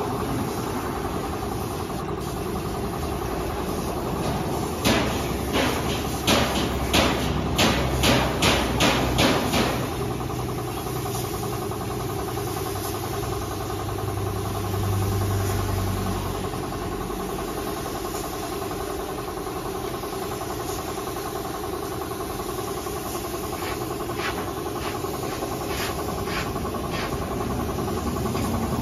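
Air compressor running steadily for spray painting. About five seconds in comes a quick run of a dozen or so knocks, two to three a second, like hammer blows. A few fainter taps follow near the end.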